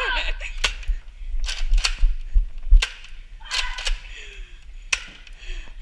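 Nerf blasters firing: about five sharp snapping clicks, irregularly spaced over several seconds, with dull thumps from movement between them.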